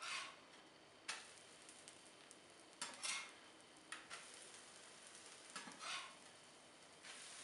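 A metal spatula scraping across a flat glass griddle as it slides under pancakes and turns them over, about five short scrapes and clacks, over a faint steady sizzle of the pancakes frying.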